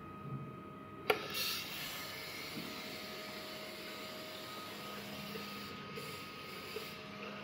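Tap water running into a ceramic wall-mounted washbasin as a steady hiss. It starts with a sharp click about a second in and cuts off shortly before the end.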